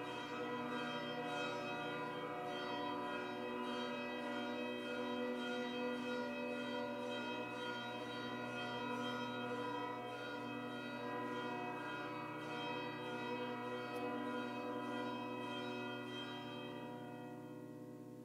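Bells rung continuously and rapidly, a dense cluster of ringing tones, marking the blessing with the Blessed Sacrament at Benediction. The ringing stops near the end and dies away.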